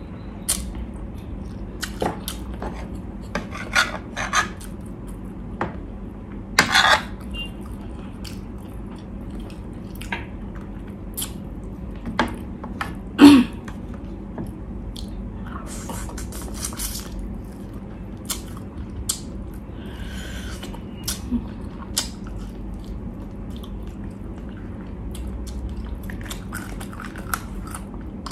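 Close-up eating sounds of pork ribs and rice eaten by hand: scattered chewing and lip-smacking clicks, now and then a louder short sound, over a steady low hum.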